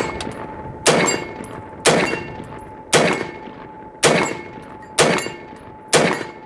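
AR-15 rifle chambered in .223 fired in steady semi-automatic single shots, six sharp reports about a second apart, each with a short echoing tail.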